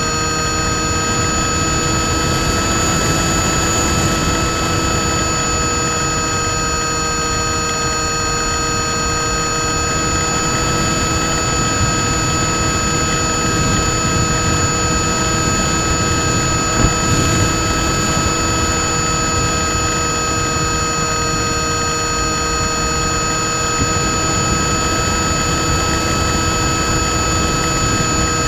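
Small electric motor spinning an APC 6x4E propeller on an RC FPV wing, a steady whine at an unchanging pitch, heard from the onboard camera with wind rushing over it.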